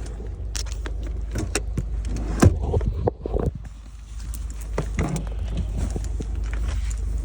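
Steady low rumble of a car heard from inside the cabin, with scattered clicks and knocks of handling in the car, the sharpest about two and a half seconds in.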